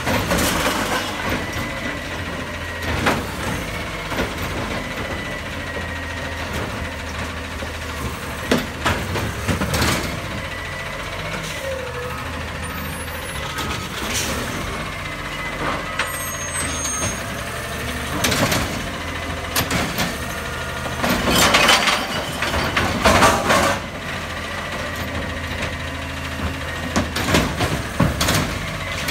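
Split-body automated side-loader garbage truck running, with a thin steady whine through its engine drone, while its lift arm dumps a cart into the hopper. Repeated loud bangs and clatters of the cart and arm, heaviest about three quarters of the way through.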